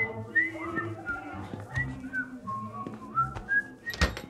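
A person whistling a slow tune, one clear note at a time with slides between notes, over soft sustained background music. A sharp knock sounds near the end.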